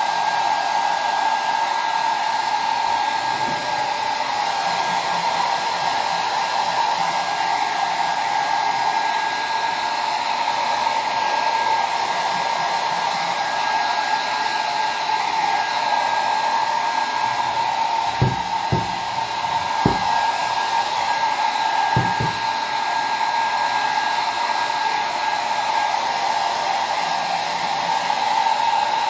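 Handheld hair dryer running steadily, a constant whine over the rush of air. A few brief knocks about two-thirds of the way through.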